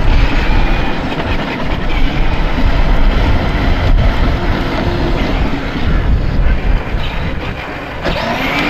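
A 12-volt Fisher-Price Power Wheels Harley-Davidson ride-on toy motorcycle driving across asphalt: a steady, noisy rumble of its electric drive and plastic wheels on the pavement, with wind buffeting the microphone.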